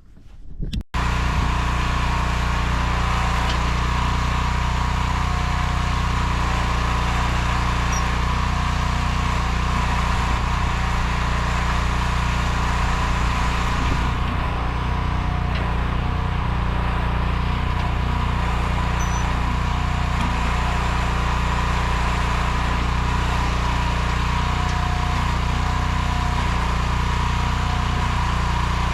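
The 15 hp gasoline engine of a Nortrac towable backhoe running at a steady speed, an even, unchanging engine note.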